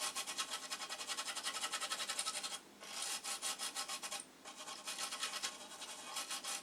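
Amiga 2000 motherboard being scrubbed clean around the desoldered processor socket: quick back-and-forth rubbing strokes, about six a second, broken by two short pauses.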